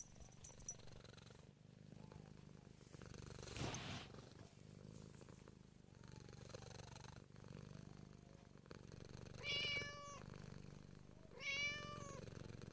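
Seal point Siamese cat purring steadily, then meowing twice near the end, two short calls about two seconds apart, the second a little longer.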